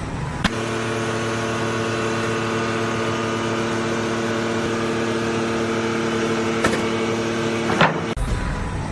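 A machine's engine or motor running steadily with a constant hum. It starts with a click about half a second in and cuts off abruptly near the end, with a couple of sharp knocks along the way.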